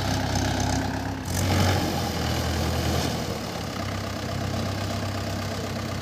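Vehicle engine running steadily, swelling louder for a moment just after a second in.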